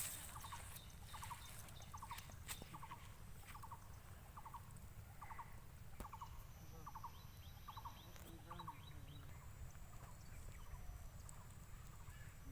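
A bird calling faintly and repeatedly, each call a quick cluster of short chirps, about two calls a second, over a low steady background hum.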